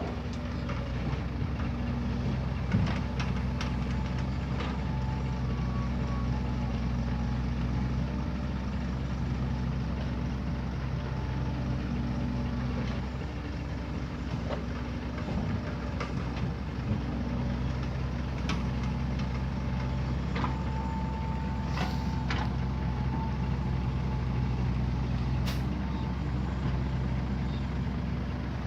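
Heavy diesel engines of an excavator and dump trucks running steadily, with scattered knocks and clanks. A brief high tone sounds about two-thirds of the way through.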